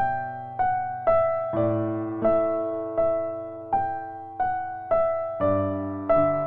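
Slow, gentle piano music: single notes struck about every two-thirds of a second, each fading away, over held bass notes.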